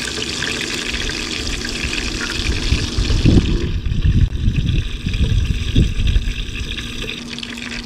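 Hot oil sizzling as crumbed drummer fish pieces fry in a pan. It is a steady hiss that thins out about three and a half seconds in, with low rumbling thumps over the middle.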